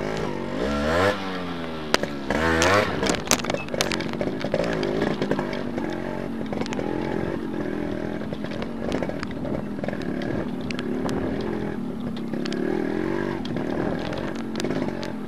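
Two-stroke single-cylinder Yamaha motorcycle engine under way on a muddy track, heard from the rider's seat. Its pitch rises and falls several times in the first three seconds, with a few sharp knocks, then it runs more steadily with small throttle changes.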